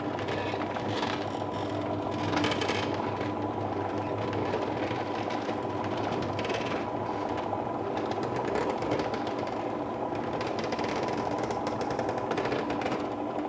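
Medium-sized electric roller shutter running, heard from inside the house: a steady motor hum with an uneven clatter from the moving shutter over it.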